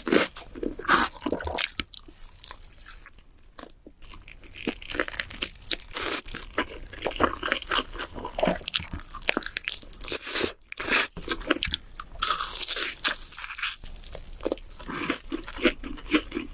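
Close-up eating sounds: a person biting and chewing seasoned spicy chicken, with repeated irregular crunches. Quieter for a stretch from about two to four seconds in.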